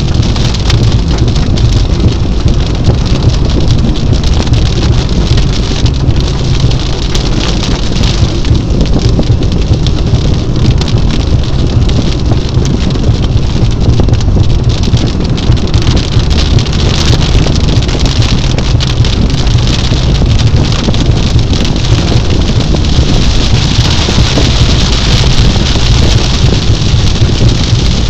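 Car driving on a wet highway in heavy rain, heard from inside the cabin: a steady low rumble of tyres and engine under a hiss of rain and road spray, with scattered ticks of raindrops on the windshield. The hiss grows louder near the end.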